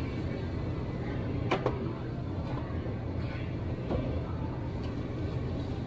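Steady low hum from open refrigerated display cases, with a sharp click about a second and a half in and a fainter one near four seconds.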